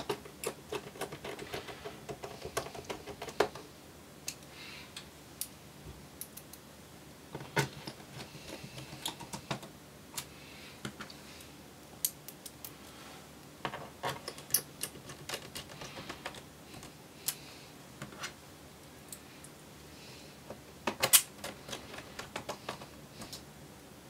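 Small Phillips screwdriver and screws clicking and tapping against the Dell Inspiron 15 3501's plastic base panel as the base screws are put back in. Irregular light clicks, with a louder cluster of clicks near the end.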